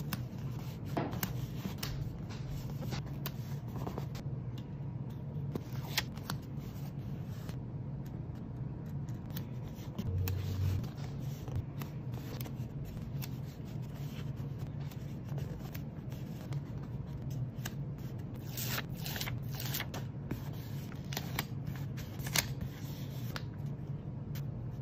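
Paper stickers being handled, laid and pressed onto a rough handmade-paper journal page: light rustles, rubs and small clicks scattered throughout, over a steady low hum.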